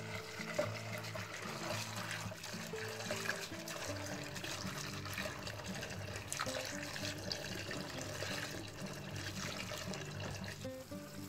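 Thin stream of water pouring into an aluminium pan of chopped green beans while hands swish and stir the beans to rinse them, under background music with a steady sequence of low notes.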